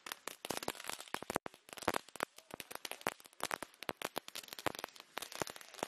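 New Year's Eve fireworks: a dense, irregular run of sharp firecracker bangs and crackles, many each second.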